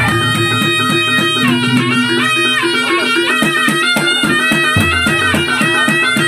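Reog ensemble music: a slompret (shrill Javanese reed shawm) plays a wavering melody over a steady beat of drums and gongs.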